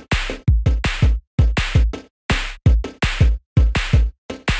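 Electronic music with a drum-machine beat: a fast, steady run of punchy kick drums and snappy snare hits.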